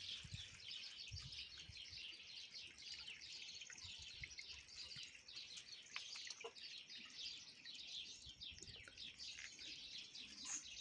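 Faint birdsong: small birds chirping continuously, with a few soft knocks.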